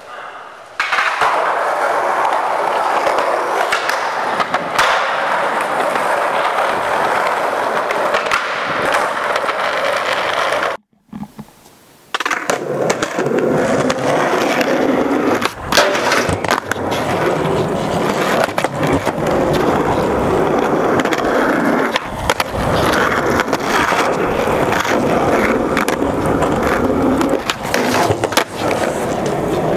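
Skateboard wheels rolling steadily on rough concrete, with occasional sharp clacks of the board. The sound breaks off briefly about eleven seconds in, then the rolling starts again.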